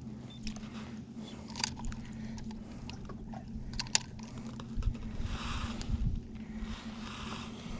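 Fish and scale being handled in a bass boat: scattered clicks and knocks, with a splashy rustle about five seconds in, over the steady low hum of a small motor.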